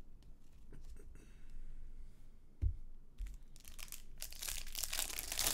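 Trading-card pack wrapper crinkling and tearing open, loudest and densest in the last two seconds. A dull thump about two and a half seconds in.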